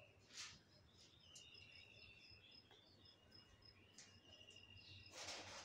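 Near silence with faint background chirping of insects and birds: a rapid, pulsed high chirp and longer thin whistles, with a brief rustle near the end.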